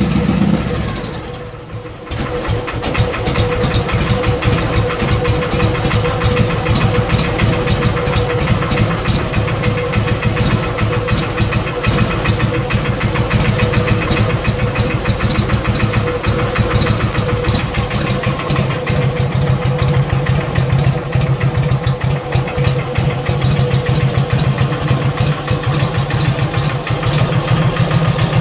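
Harley-Davidson Panhead V-twin engine idling with a bad knock in the front cylinder, which the owner has found is not an intake leak. About a second in the engine sound drops away briefly, then picks back up and runs steadily.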